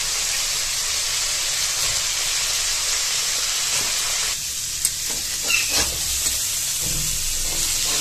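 Hot oil sizzling as kabuli chana and boiled potato chunks fry in a kadhai, a steady hiss that eases about halfway through. A few scrapes and knocks of the metal spatula against the pan follow in the second half.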